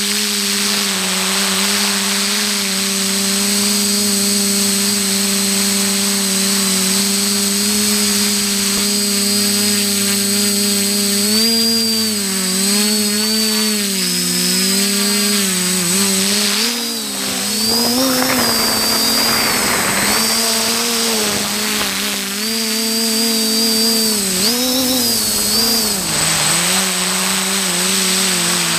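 Multirotor drone's electric motors and propellers buzzing, heard from the GoPro on board. A steady hum while hovering; from about eleven seconds in, the pitch rises and falls again and again as the drone speeds up, turns and slows.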